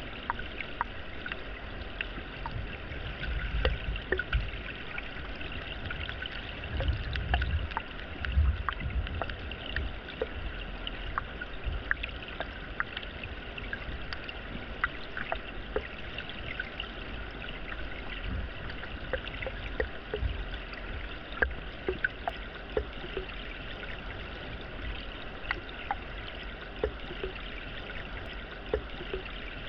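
Flowing water with a steady trickling hiss and many small scattered clicks, broken by a few low rumbles a few seconds in and again around eight seconds in.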